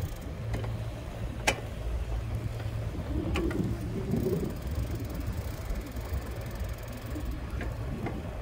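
Steady low rumble of a small vehicle rolling slowly along a paved lane, with a sharp click about one and a half seconds in.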